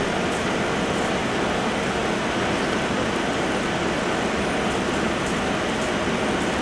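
Steady, even wash of outdoor background noise with no distinct events.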